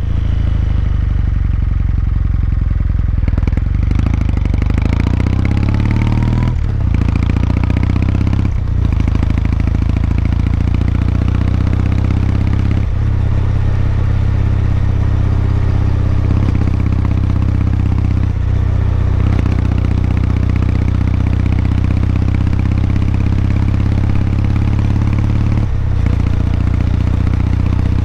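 Kawasaki Meguro K3's air-cooled parallel-twin engine running steadily while the motorcycle is ridden, the engine note briefly dipping and changing pitch several times, as at gear changes or throttle shifts.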